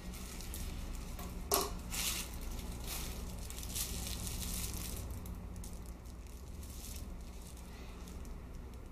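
Thin plastic bag crinkling and rustling as it is cut with kitchen scissors and handled, with a sharp snip of the scissors about a second and a half in. The crinkling is busiest in the first half and quieter after.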